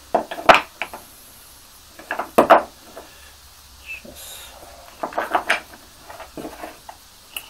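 Wooden blocks of a homemade drilling jig knocking against each other and the wooden workbench as they are handled and refitted, with light clinks of its metal bolt. The taps and clicks come in four short clusters.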